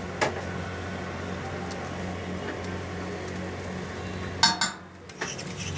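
Metal spatula scraping and clinking on a dosa griddle over a steady low hum, with a short, loud scrape about four and a half seconds in.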